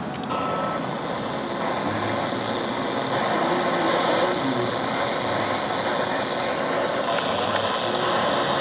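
Handheld FM transceiver's speaker hissing with receiver static while tuned to the AO-85 amateur satellite downlink. The steady rushing noise comes on abruptly as the transmit button is released and holds level, a weak, noisy downlink with the satellite still low in the sky.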